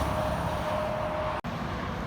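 Road traffic noise: low rumble of passing vehicles with a steady whine, broken by a sudden split-second dropout about one and a half seconds in.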